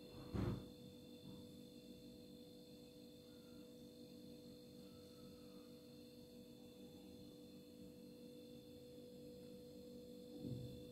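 Near silence: a faint steady hum with a few steady tones, broken by a short thump about half a second in and a softer one near the end.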